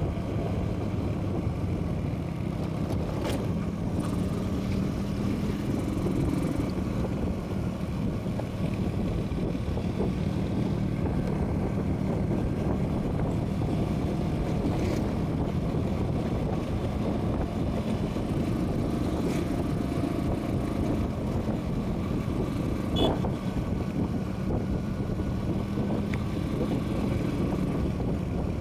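Motorcycle riding at a steady cruise on a paved road: an even engine hum with wind and road noise on the microphone. A single short click about three-quarters of the way through.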